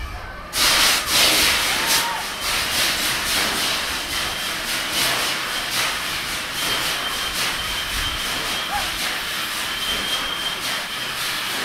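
Crowd of riders screaming on a spinning amusement ride, breaking out suddenly about half a second in and going on as a loud, dense din, with a thin steady high tone joining in the second half.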